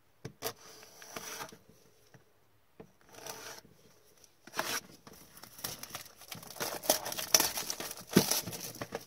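Utility knife slitting the cellophane shrink wrap on a trading-card box, faint at first, then the plastic wrap crinkling loudly as it is peeled off and bunched up over the second half.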